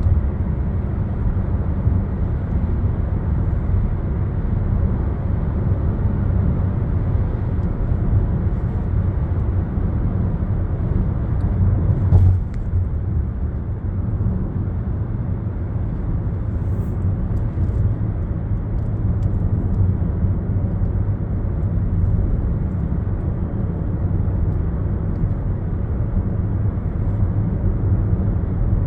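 Steady low rumble of a moving road vehicle, with a single knock or bump about twelve seconds in.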